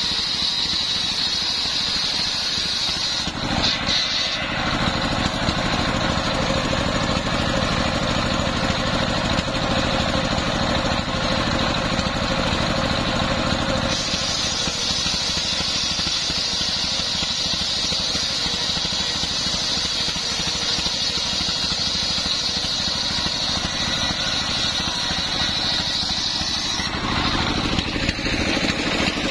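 Stationary diesel engine running steadily, driving a large belt-driven circular saw blade that is ripping coconut-palm (glugu) planks. The sound shifts a few times, about 3 seconds in, midway and near the end, as cuts start and finish.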